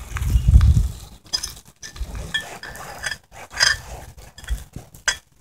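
A metal fork scraping and clinking against a small cast iron skillet as leftover seasoning is scooped out, in short uneven strokes. A low rumble is heard in the first second.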